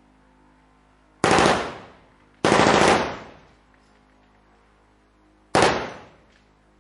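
Machine gun firing blanks in three short bursts, about a second apart and then three seconds apart. The second burst is the longest, and each one trails off in an echo.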